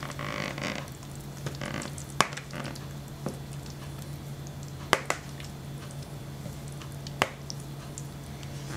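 A spatula scraping thick mashed butternut squash pie filling out of a bowl into a glass pie dish, with soft wet squishing and four sharp taps of the spatula against the dishes, over a steady low hum.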